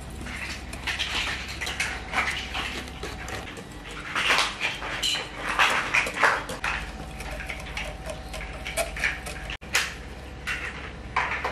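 Wire whisk beating thick batter in a glass bowl: a run of irregular swishing and scraping strokes, with the wires clicking against the glass.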